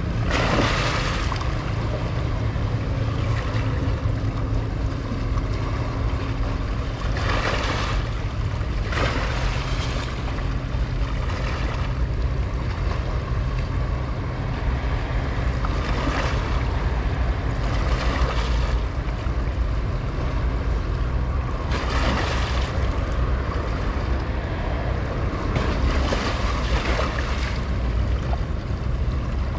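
Sea ambience: a steady low rumble under washing waves that swell up irregularly every few seconds.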